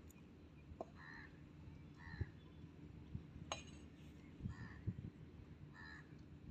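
A bird calling four times in short calls, with a single sharp click about halfway through.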